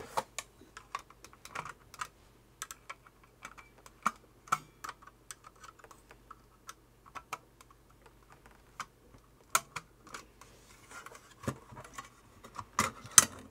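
Small irregular clicks and taps of a screwdriver tip and fingers working at the clips of a Sony floppy drive's sheet-metal top plate, prying it loose, with a few sharper clicks near the end.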